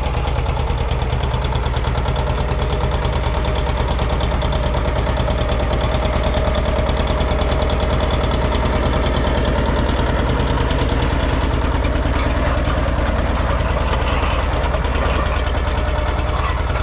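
John Deere 730 Diesel's two-cylinder diesel engine running steadily with an even firing beat while under load, pulling a culti-mulcher through worked ground.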